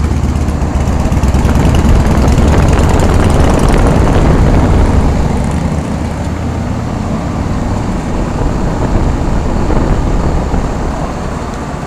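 Two 1995 Rheem Classic 5-ton central air-conditioner condensing units running: a steady rush of condenser fan air over a low compressor hum, easing off a little after about five seconds.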